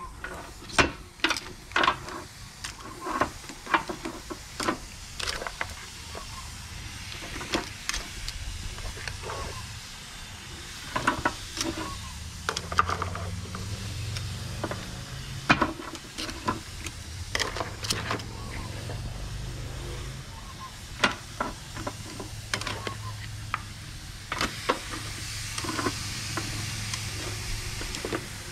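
Metal barbecue tongs clicking and clacking against the grill grate and the shells of halved mud crabs as they are laid on the hot grill, over a steady sizzling hiss and a low hum.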